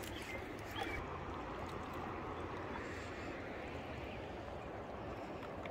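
Steady outdoor background noise with no clear single source, and a few faint high chirps in the first second.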